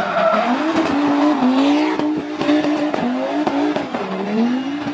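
A rally car's engine at full throttle, its pitch climbing and dropping several times through gear changes and lifts. A string of short sharp cracks sounds over it in the middle.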